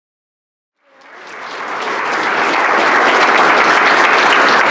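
An audience clapping: the applause swells in about a second in and holds steady and full.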